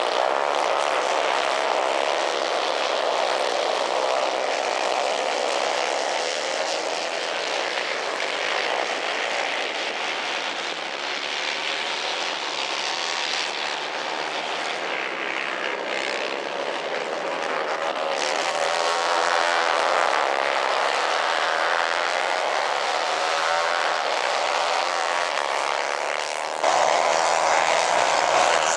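Several 150 cc kart engines running hard in a race, a busy overlapping buzz that wavers in pitch as the drivers rev and lift. The sound jumps abruptly louder near the end.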